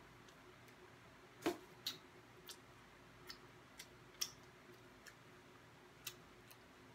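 Close-miked mouth sounds of eating fried chicken wings: scattered wet lip smacks and tongue clicks as wings are chewed and fingers licked, about eight sharp clicks, the loudest about a second and a half in.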